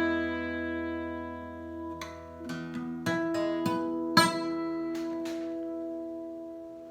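Solo acoustic guitar playing the closing bars of a folk song: a few picked notes and chords, then the final chord left ringing and slowly fading.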